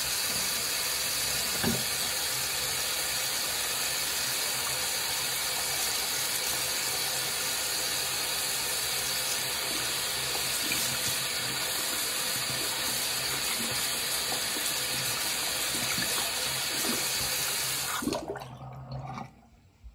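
Bathroom sink faucet running steadily while hands are washed under it, then turned off near the end.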